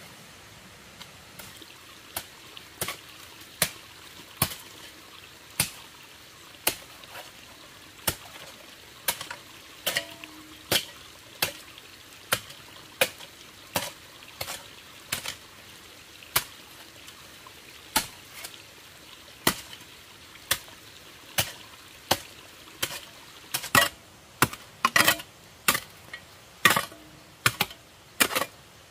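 Repeated sharp chopping or tapping strikes of a hand tool, about one a second, coming faster and louder in the last few seconds.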